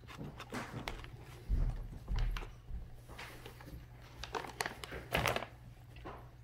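Irregular light clicks and rattles of kittens pawing and nosing at a plastic treat puzzle feeder, its pegs, cups and loose treats knocking about. Two dull thumps come about a second and a half and two seconds in, the loudest sounds here.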